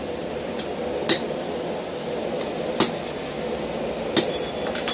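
Hand hammer blows on the red-hot eye of a forged box wrench, worked over a pin on a steel block: three sharp strikes about a second and a half apart, the last followed by a brief high ring, with a couple of lighter taps between them.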